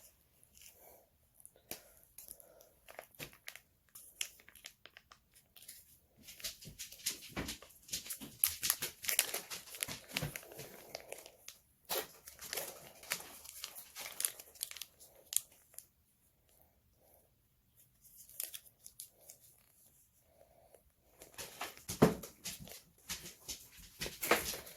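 Plastic frosting pouch crinkling and tearing in scattered crackles and clicks as it is worked open, with a short quiet pause about two-thirds of the way through.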